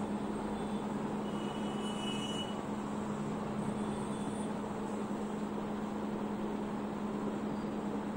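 Steady room noise with a constant low hum. A marker on a whiteboard gives a faint, brief squeak about two seconds in.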